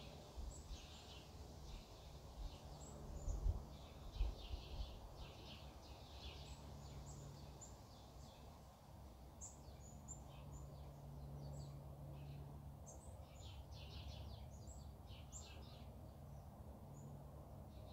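Small birds chirping and trilling in short high phrases again and again, faint over a low steady rumble. A few low thuds come about three to four seconds in.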